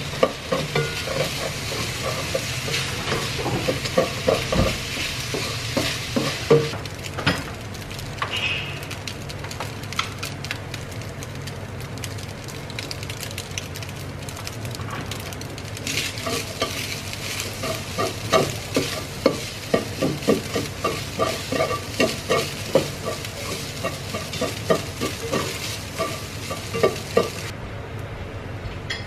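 Fried rice sizzling in a nonstick wok while a plastic spatula stirs and turns it, with runs of quick scraping taps against the pan.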